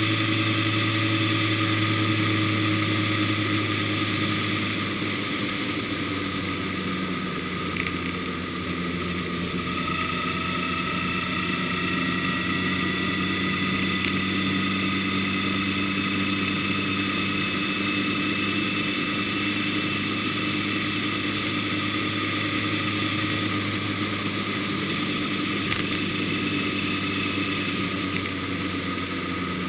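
Vehicle engine running steadily at cruising speed, heard from on board, its pitch shifting slightly a few seconds in and then holding even.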